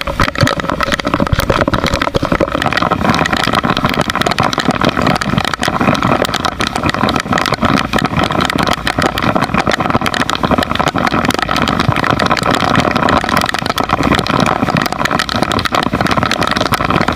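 A small boat's engine running steadily, with a dense crackle over it.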